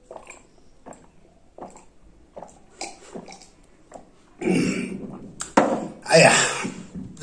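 A man gulping water from a glass mug, with soft swallowing clicks less than a second apart. Then come two loud, rough burps, one right after the other, in the last few seconds.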